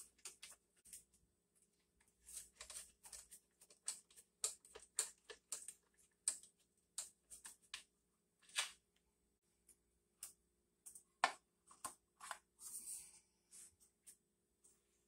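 Faint, irregular clicks and light metal taps of a screwdriver working the bolts that hold the recoil starter on a 1964 Johnson 3 hp outboard, with a brief scrape near the end as the recoil housing is lifted off.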